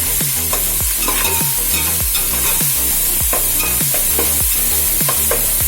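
Onions and ginger-garlic paste sizzling in hot oil and ghee in a kadai while being stirred and sautéed, with a steady hiss. A background music beat thumps underneath.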